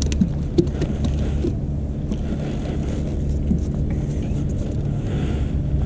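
Steady low hum of a boat motor running. There are a few light clicks in the first second and a half.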